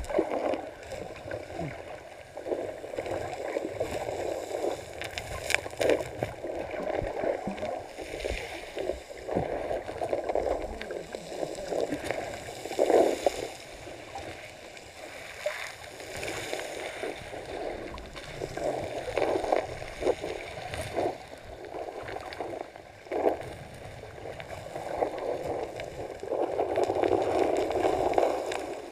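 Muffled underwater sound from a camera in its waterproof housing: a fluctuating watery rumble, with a few sharp knocks.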